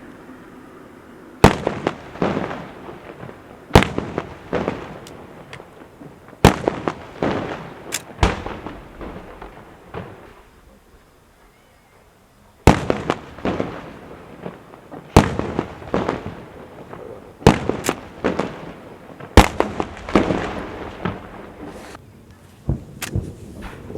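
Fireworks going off: a series of sharp loud bangs every two to three seconds, each followed by crackling pops and a trailing echo, with a short lull about halfway through.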